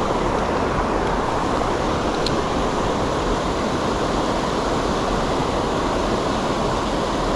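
Steady rush of fast-flowing creek water running strong.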